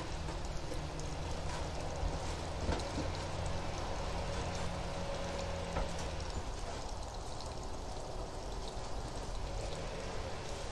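Distant lawn-care engine running steadily: a low engine hum under a constant hiss, with a few faint clicks.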